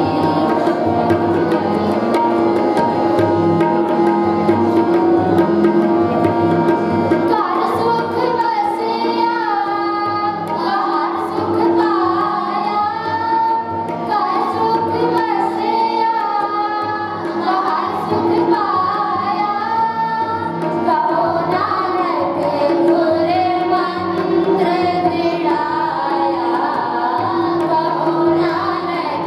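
Children singing Sikh kirtan in unison to harmonium and tabla: young girls' voices carry a bending melody over the harmonium's steady held tone, while tabla strokes keep the rhythm underneath.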